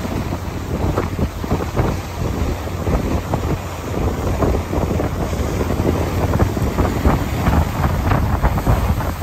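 Wind buffeting the microphone aboard a moving lake passenger boat, in irregular gusts over a steady low rumble.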